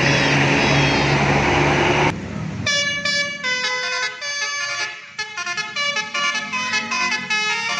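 A loud noisy rush with a few horn tones for about two seconds, which cuts off suddenly. Then a bus's multi-tone musical air horn (a 'telolet' horn) plays a fast melody of short notes stepping up and down in pitch.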